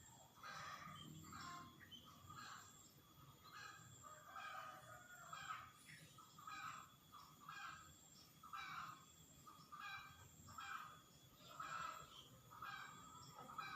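Faint bird calls repeating about once or twice a second.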